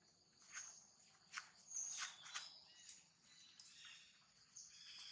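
Faint outdoor ambience: insects buzzing steadily, with a few brief rustles in dry leaves and high chirping from about three and a half seconds in.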